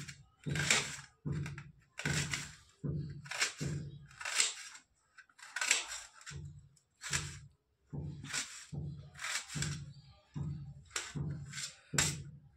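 Kitchen knife slicing a red onion on a stainless steel plate: a steady run of chops, about one and a half a second, each blade stroke knocking on the steel.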